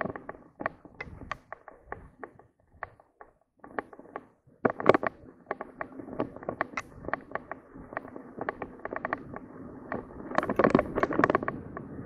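Mountain bike rattling over a bumpy dirt trail: rapid clatter and sharp knocks from the bike over steady tyre noise on the dirt, with heavier bursts of clattering about five seconds in and again near the end.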